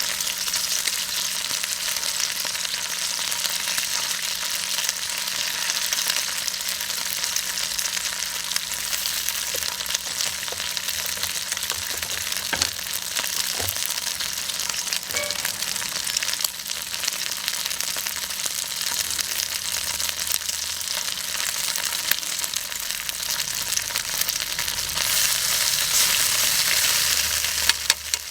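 Seasoned meat and garlic scapes sizzling in a hot iron frying pan over a wood fire, a steady hiss with a few sharp clicks, getting a little louder near the end.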